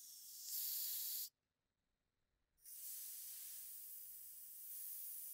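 Refrigerant hissing out of the manifold gauge's red and blue hoses as their hose valves are opened briefly to purge the hoses. There is a short hiss of about a second, a pause, then a longer hiss of nearly three seconds.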